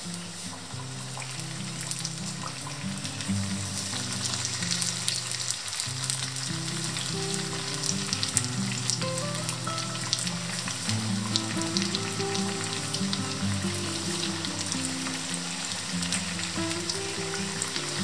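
Food deep-frying in hot oil, a dense steady crackle and sizzle, with background music playing.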